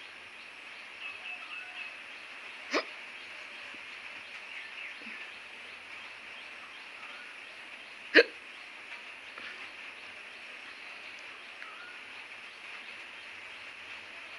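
A woman hiccuping twice, about five seconds apart, the second hiccup much louder than the first.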